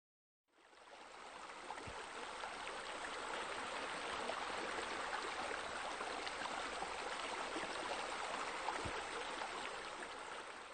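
Crackling wood fire: a steady hiss with scattered small pops and two deeper pops, fading in just after the start and fading out near the end.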